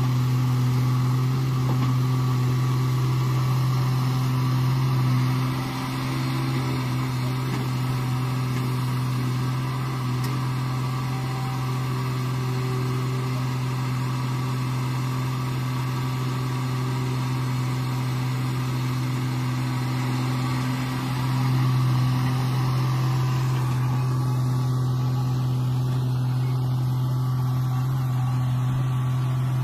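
Sumitomo hydraulic excavator's diesel engine running under digging load with a steady low drone; it dips slightly about six seconds in and swells again a little after twenty seconds.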